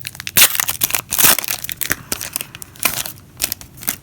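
Wrapper of a trading-card pack crinkling and tearing as it is ripped open, in quick clusters of crackling rustles.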